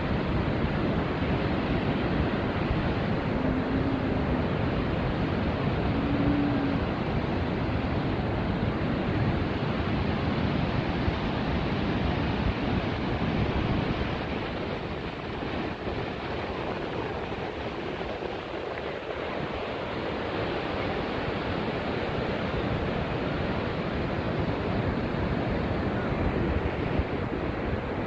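Steady rush of ocean surf breaking on a beach, mixed with wind buffeting the microphone; it eases a little about halfway through.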